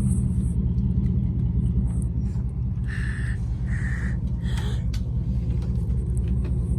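Steady low rumble of an idling vehicle engine, with two short horn honks about three seconds in and a brief further blast just after.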